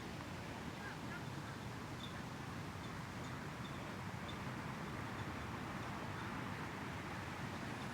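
Quiet, steady outdoor background noise with a low rumble of wind on the microphone, and a few faint, brief high bird chirps.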